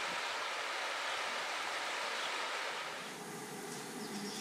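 Steady rushing noise with almost no low rumble, easing slightly about three seconds in.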